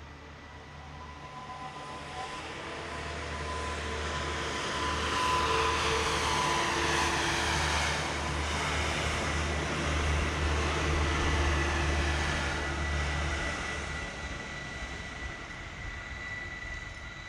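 Electric multiple unit passing close by on the next track. Its running noise swells over a few seconds, holds, and fades again, and a low hum cuts off near the end. A thin steady high whine runs through.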